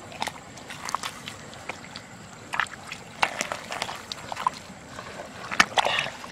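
A hand digging into a crab burrow in wet mud at the water's edge: irregular squelches and small splashes, loudest a little before the end.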